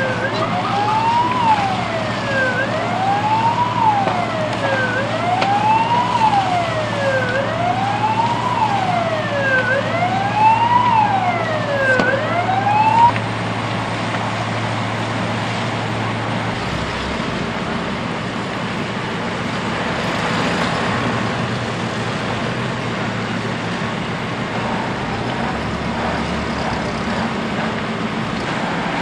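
Emergency vehicle siren wailing, rising and falling about once every two and a half seconds, over a low steady hum. The siren cuts off about halfway through, leaving a steady background rumble of vehicles and outdoor noise.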